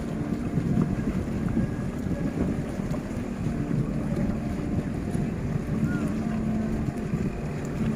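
Wind buffeting the microphone, a steady low rumble with a faint hum running through it.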